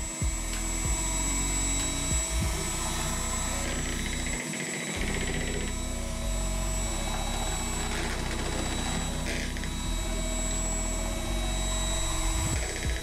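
Electric hand mixer running steadily, its beaters whisking a pale mixture in a plastic bowl. A few sharp knocks come in the first two seconds or so.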